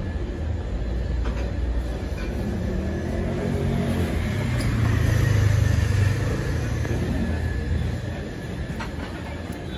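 A low rumble that grows loudest about five to six seconds in and then eases off.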